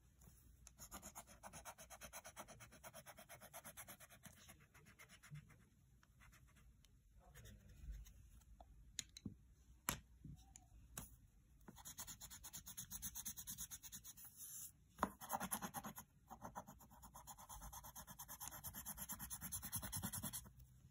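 Faint, fast, even scratching strokes on paper in three stretches of a few seconds each, with a few single clicks in between.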